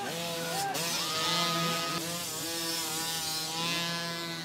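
Several small 50cc dirt bike engines revving at once, their high-pitched buzz overlapping at different pitches and rising and falling as the riders spin their rear wheels for grip in deep mud.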